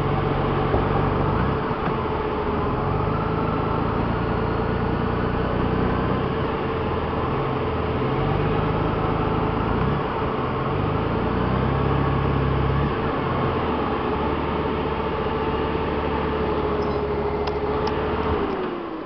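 A vehicle engine idling steadily with a constant whine above it; near the end the engine is switched off, the whine sinking in pitch as it winds down.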